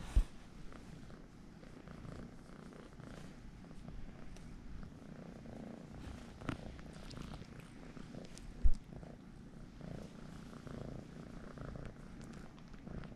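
Domestic cat purring steadily while being petted and scratched under the chin, a sign of contentment. Two short low bumps break through, one right at the start and one about nine seconds in.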